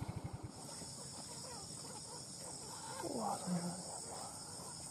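A steady high-pitched chorus of insects. An engine running at idle cuts out about half a second in, and a brief faint call is heard about three seconds in.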